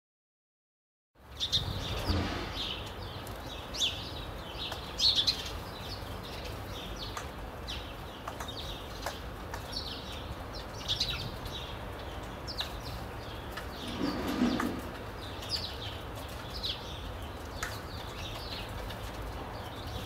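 Sparrows chirping repeatedly in short, high calls over a steady low background hum, starting about a second in. A brief lower, muffled sound comes about two-thirds of the way through.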